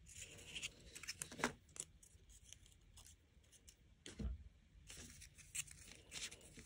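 Paper labels being pulled off the pins in cut fabric pieces, which are handled on a paper pattern sheet: faint scattered rustles and small clicks, with one soft knock about four seconds in.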